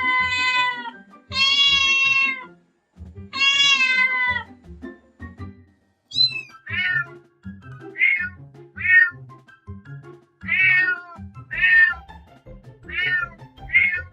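A domestic cat meowing: three long, drawn-out meows, then a run of about ten short, higher meows in quick succession, each falling in pitch. Background music plays underneath.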